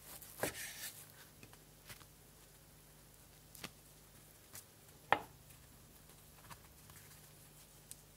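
Kitchen knife slicing through stacked deep-fried tofu (aburaage) onto a wooden cutting board, a short scraping cut about half a second in. It is followed by a few separate sharp knocks and light handling sounds on the board, the loudest about five seconds in.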